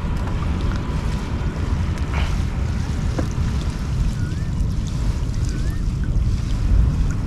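Wind rumbling on the microphone over water lapping against a small fishing boat, with a few soft knocks as a gill net is hauled in by hand.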